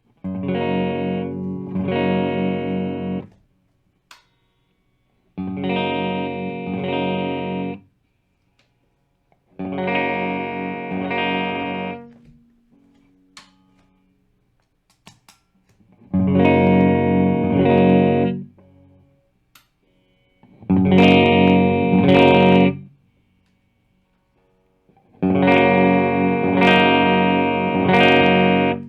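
Squier Classic Vibe Starcaster electric guitar played through an amp in six short phrases of strummed chords. Each phrase lasts two to three seconds and stops, with brief gaps between them.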